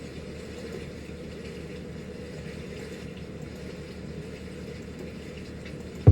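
Steady low electrical hum with a faint hiss, then a single loud low thump right at the end.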